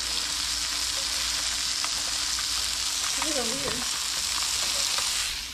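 Hot oil sizzling steadily in a skillet as a folded tortilla fries into a taco shell. The sizzle cuts off shortly before the end.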